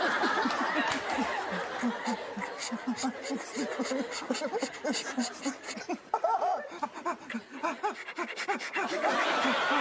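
Several people snickering and chuckling, many short laughs overlapping.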